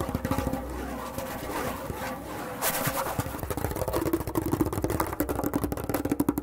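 Solo tombak (Persian goblet drum) played with fast finger strokes and rolls, a dense stream of rapid hits. A sharp accented stroke lands about two and a half seconds in.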